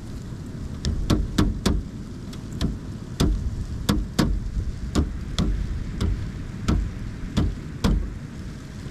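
Pileated woodpecker pecking and chiselling into wood: about fifteen sharp, irregularly spaced strikes, roughly two a second, rather than a fast drumming roll. A steady low rumble of wind runs underneath.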